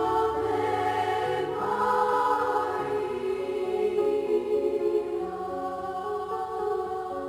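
Choir singing a slow, soothing hymn in long held notes.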